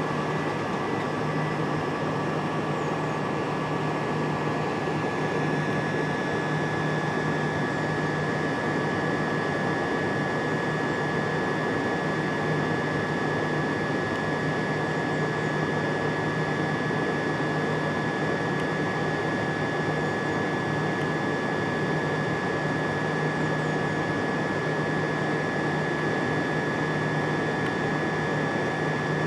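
Steady hum and hiss of a stationary electric train's auxiliary equipment, with a constant high-pitched whine and a low drone that do not change.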